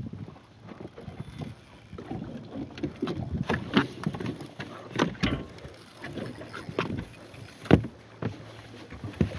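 Irregular knocks and bumps on a small fishing boat, with the loudest knock about three-quarters of the way through.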